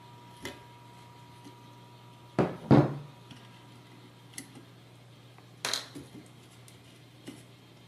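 Hands handling small metal parts on a stainless-steel robot chassis: scattered knocks and clinks, the loudest a quick double knock a little before the middle and another near three-quarters of the way through, over a faint steady hum.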